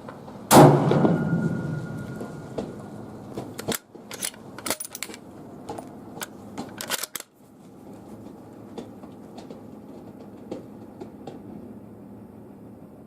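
A 6.5 Creedmoor Ruger Precision Rifle fires one supersonic shot, a sharp loud crack with a ringing tail of about a second and a half. A few seconds later comes a quick run of clicks and clacks as the bolt is worked.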